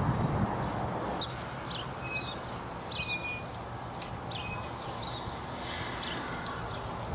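Small birds chirping, short high calls repeated about once a second, over a steady low background hum.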